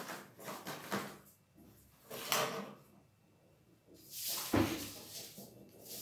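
Stiff chart paper being handled, folded and slid across a tabletop, in several separate rustles, with a dull thump on the table about three quarters of the way through.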